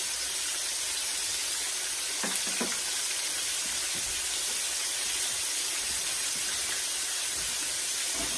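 Whole chicken breast frying in hot grease in a pan, a steady sizzle, with a couple of light clicks about two seconds in.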